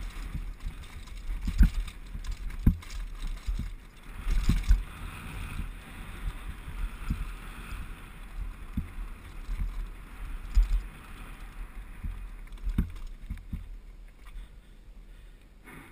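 2011 Specialized Big Hit downhill mountain bike ridden fast over a rocky gravel track, heard through a helmet-mounted GoPro: wind buffeting the microphone, tyres crunching over loose stones, and frequent thuds and rattles as the bike hits rocks. The noise eases off near the end.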